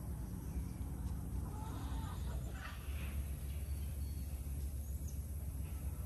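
A chicken clucking briefly about two seconds in, over a steady low rumble.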